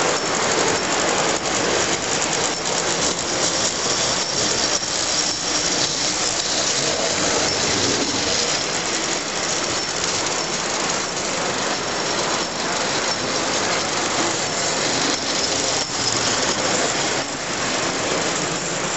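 Standard gauge tinplate toy trains running on three-rail track: a steady rolling rumble of wheels and motors with frequent light clicks.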